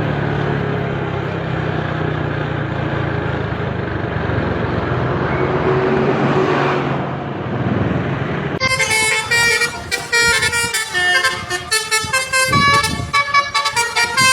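A bus drives past with engine and road noise. About eight and a half seconds in, a multi-tone Basuri 'telolet' musical bus horn starts up and plays a quick tune of changing notes.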